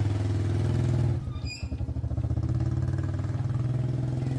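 Small motorcycle engine running at idle, with a brief uneven dip about a second in before it settles back to a steady beat.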